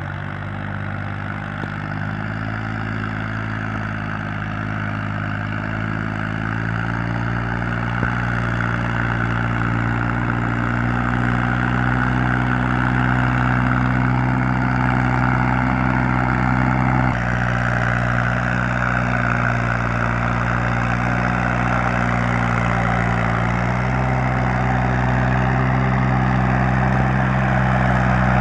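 Massey Ferguson 240 tractor's three-cylinder diesel engine running steadily under load, hauling a trolley heavily loaded with logs. The engine note shifts pitch a few times and grows steadily louder as the tractor approaches.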